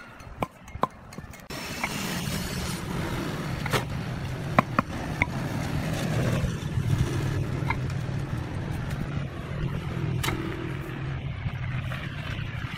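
Irregular sharp taps of a mallet seating concrete hexagonal pavers into sand, about ten spread across the stretch. Under them a steady low engine-like rumble starts abruptly about a second and a half in and runs on.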